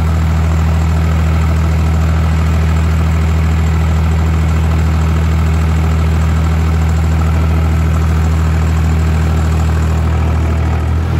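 Massey Ferguson 245 tractor engine running steadily while working a rotary tiller through garden soil. Its note shifts just before the end.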